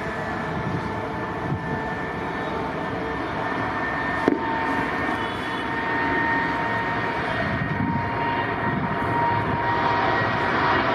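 Jet airliner engines: a steady whine over a broad rush, growing gradually louder. A single sharp click about four seconds in.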